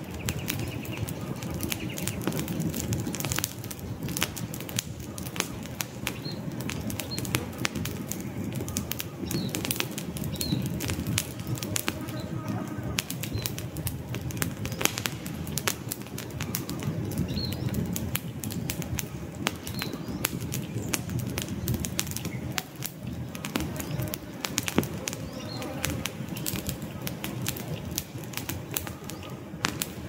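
Wood campfire burning, with frequent irregular sharp crackles and pops over a steady low rumble of flame. A few short bird chirps sound now and then.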